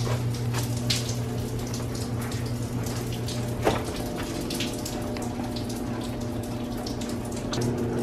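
Water dripping from a leak, many irregular drips and splashes, over a steady low hum.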